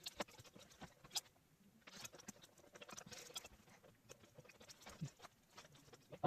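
Faint, irregular clicks, taps and scraping from computer parts and tools being handled while a motherboard is fitted into a PC case, with a denser stretch of scraping about two seconds in.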